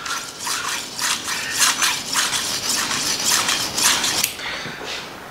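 Steel kitchen-knife blade scraping back and forth over an oiled sharpening stone in quick, even strokes, about four or five a second, easing off near the end. The edge bevel is being honed at a set angle on the stone's flat face.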